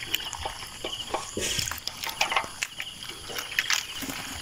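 Nylon gill net being handled while fish are worked out of the mesh by hand: irregular light rustles and small clicks.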